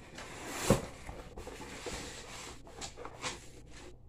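A cardboard shipping box being opened and handled, flaps and cardboard rubbing and rustling, with one sharp knock about 0.7 s in. Plastic packaging rustles as an item is lifted out near the end.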